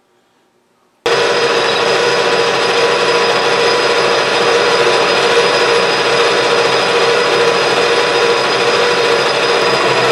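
Metal lathe running and turning down the end of a 4140 pre-hardened steel rod held in a six-jaw chuck, a steady machining noise with a few constant tones. It starts abruptly about a second in.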